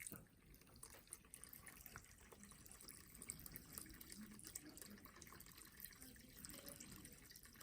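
Faint trickle of water running down a sand-filled stream table from a raised bucket, with small scattered drips.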